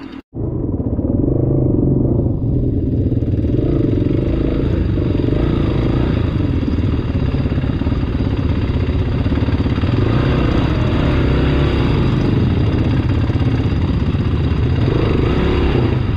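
Motorcycle engine running steadily at low speed, heard from on board the bike, which starts abruptly after a brief dropout just after the start.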